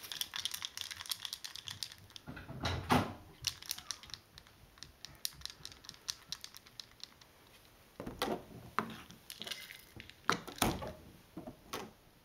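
Dry cat kibble rattling in a small dish as it is shaken, in quick bursts of clicks, with a few louder knocks about three seconds in and again near ten seconds.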